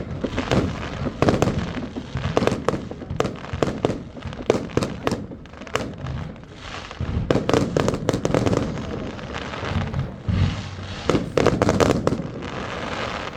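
New Year's Eve fireworks and firecrackers going off all around: a dense, continuous string of sharp bangs and cracks over a steady rumble of further explosions.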